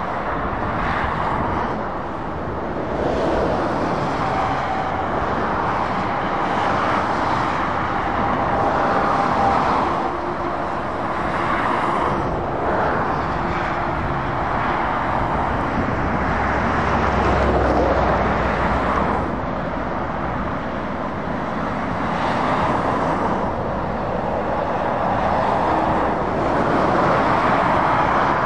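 Motorway traffic: tyre roar and diesel engines of lorries and cars passing, swelling and easing as each vehicle goes by, with a deeper rumble a little past halfway.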